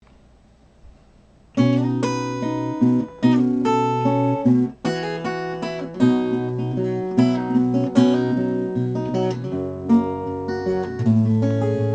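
Solo acoustic guitar intro to a song: after a quiet second and a half, chords ring out, with brief stops between phrases.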